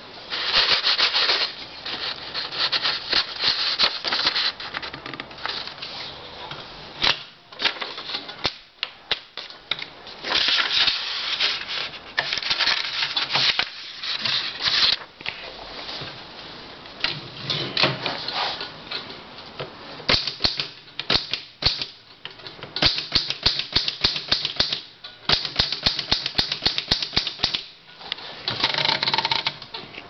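Olympia SG3 manual desktop typewriter being typed on: quick runs of key and typebar strikes against the platen, broken by short pauses.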